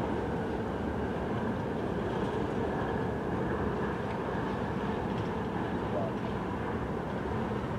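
Steady rumble of a Norfolk Southern freight train's cars rolling past on the rails.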